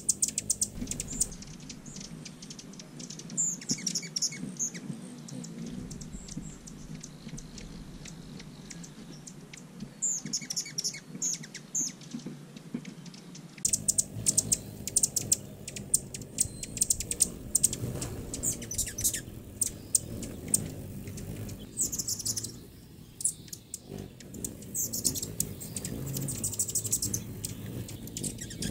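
Hummingbirds chirping: rapid high chip notes in short bursts, sparse at first and much busier from about halfway.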